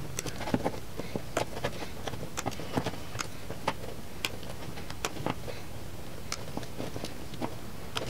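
Wire cutters snipping thin wires off the back of a wiring-harness connector one after another: sharp clicks at irregular intervals, a couple a second.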